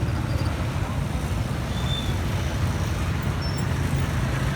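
Steady low rumble of street traffic and engines, with a few faint short high tones.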